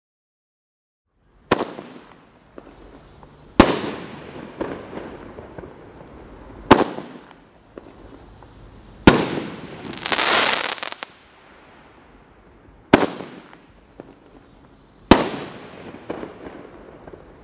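World Class Fireworks "Loud & Proud" multi-shot aerial cake firing: six loud bangs, two to four seconds apart, starting about a second and a half in, each followed by echo and smaller pops. About ten seconds in, one burst gives a second of dense crackling hiss.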